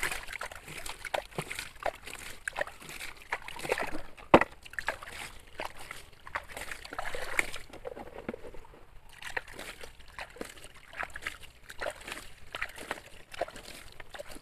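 Water sloshing and splashing as a toy dump truck is washed in a shallow stream, with many small knocks and clatters of pebbles and plastic, and one sharper knock about four seconds in.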